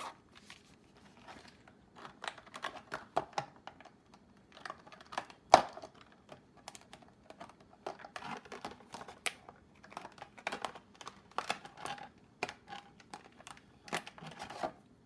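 Hands handling a small earbud carrying case and its packaging: irregular small clicks, taps and crinkling, with one sharper click about five and a half seconds in.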